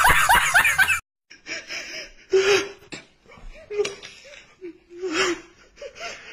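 A man laughing hard in rapid ha-ha bursts, cut off about a second in. Then a man sobbing in short, broken wails with gasping breaths between them.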